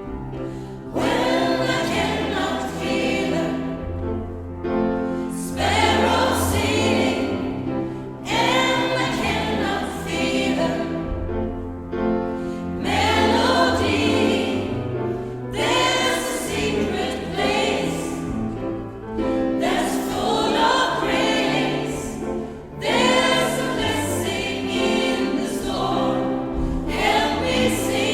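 Gospel choir singing a song in phrases a few seconds long, over an instrumental accompaniment with sustained bass notes that move every couple of seconds.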